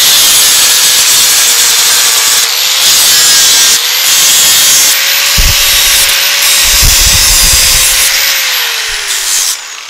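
Angle grinder working steel bracket stock: a loud, steady motor whine under a hiss of grinding, with heavier rumbles about midway. Near the end the disc comes off the work and the motor winds down.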